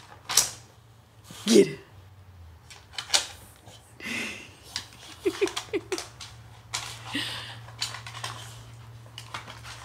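A dog nosing and pawing at a hard plastic ball-track cat toy, making irregular clicks and knocks as the toy and its ball are jostled, with a few short snuffling breaths in between.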